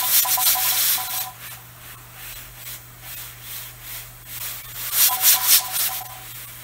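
A 10 lb weighted pressure regulator on a 22-quart Mirro pressure canner jiggling on its vent pipe and letting out steam. The steam hisses loudly twice, once at the start and again about five seconds in, with a faint whistle under the louder spells and softer puffs between. This is the canner rocking at pressure after the heat has been turned down.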